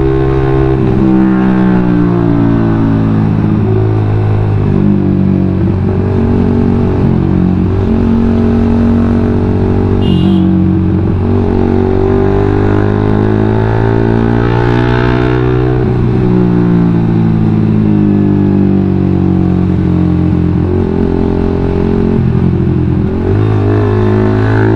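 A Suzuki GSX-R150's single-cylinder engine running through an aftermarket WRX GP5 K1 full-system exhaust, heard from the rider's seat. The revs fall and rise again several times with the throttle and gear changes as the bike slows.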